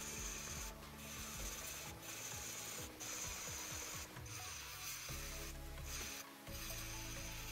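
Dremel rotary tool with a sanding drum grinding the die-cast metal body of a toy car: a steady high whine over a gritty rasp, breaking off briefly several times.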